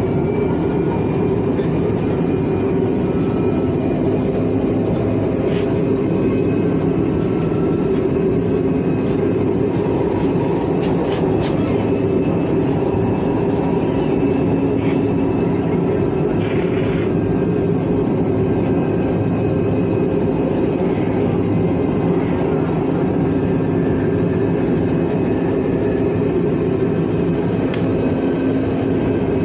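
Steady running noise of a light-rail train car heard from inside the carriage: a low rumble with a faint high whine that slowly drifts in pitch, and a few light clicks partway through.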